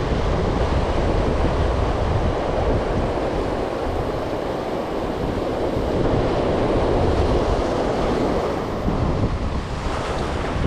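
Rough ocean surf breaking and washing over shoreline rocks, with wind rumbling on the microphone.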